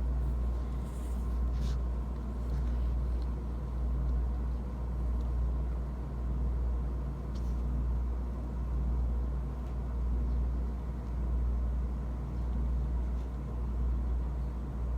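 Motor vehicle engine idling: a steady low rumble with a faint constant whine over it and a few faint clicks.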